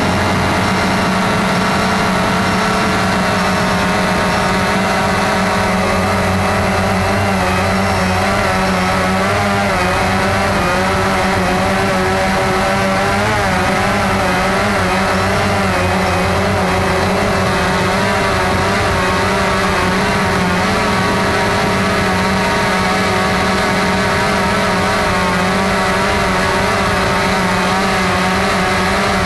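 Cheerson CX-20 quadcopter's brushless motors and propellers whining steadily in flight, heard close up from the drone's own onboard camera. The pitch wavers slightly as the motors adjust their speed.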